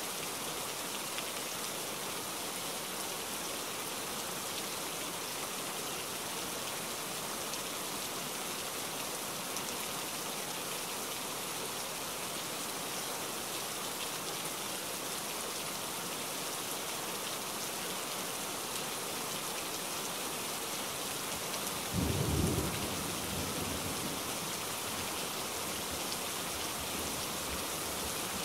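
Steady rain falling on wet paving stones and puddles. About three-quarters of the way through, a brief low rumble of thunder rises and dies away.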